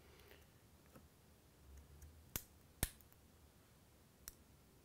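Sharp clicks and cracks as a steel blade pries a cracked iPhone 4 screen away from its midframe adhesive: two loud ones about half a second apart around the middle, and a softer one near the end.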